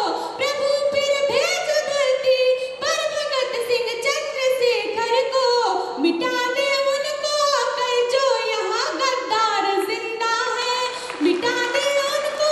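A young woman singing solo into a handheld microphone, a melody full of sliding, ornamented notes.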